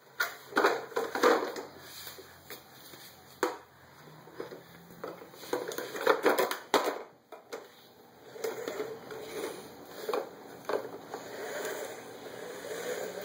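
A large plastic toy monster truck handled by a small child: irregular knocks, clatters and rustling as it is lifted, turned over and set down.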